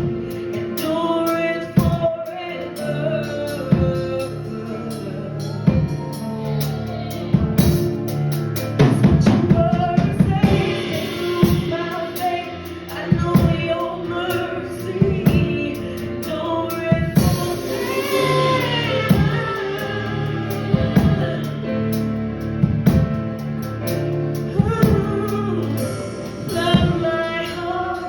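Live gospel worship song: sung melody over a band with a steady drum beat.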